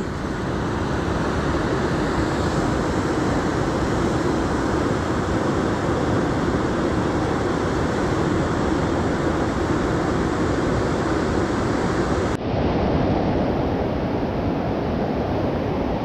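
Steady rushing noise of a large river running high and fast over rocks. About twelve seconds in it suddenly becomes duller as its higher part drops away.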